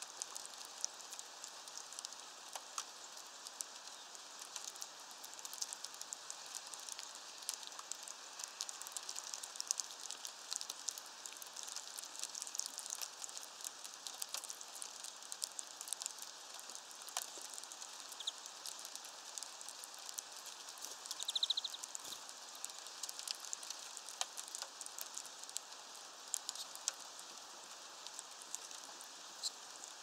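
Steady rain pattering and dripping, with many small sharp drop clicks. A short high chirp, typical of a small bird's call, sounds once about two-thirds of the way through.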